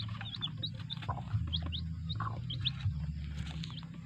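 Chicks, bought as Rhode Island Reds, peeping: many short, high chirps, several a second, over a steady low hum.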